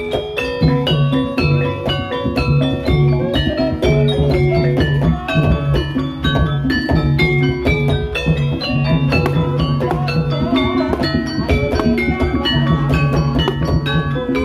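Javanese ebeg accompaniment played on a gamelan-style ensemble: tuned struck percussion rings out quick, busy melodic notes over repeated low notes and drum strokes.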